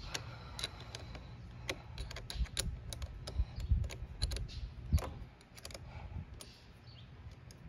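Irregular metallic clicks and taps of a hand tool working the 10 mm nut on a car battery's positive terminal clamp as it is loosened. The clicks come thickest in the middle and thin out near the end.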